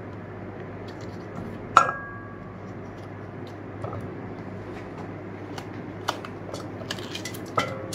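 Knife cutting a tomato over a stainless-steel chopper bowl: small clicks, and twice a sharp clink that rings briefly in the steel bowl, about two seconds in and near the end, over a steady low hum.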